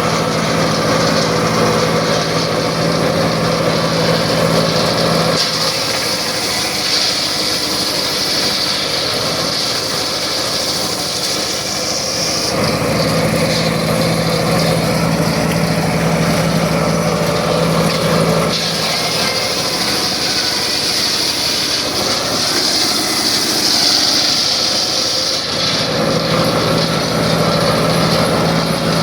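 Circular saw running steadily and cutting through wood twice, each cut lasting about seven seconds, with the steady hum of the free-running saw between cuts.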